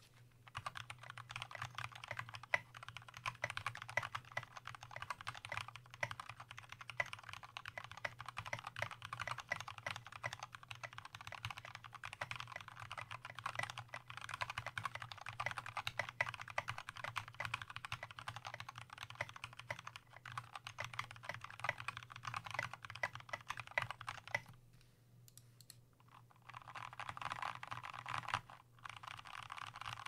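Fast continuous typing on a custom 60% mechanical keyboard with lubed Gateron Milky Brown tactile switches, an aluminium plate, PBT keycaps and a walnut wood case: a dense stream of keystrokes. The typing pauses for about two seconds near the end, then resumes.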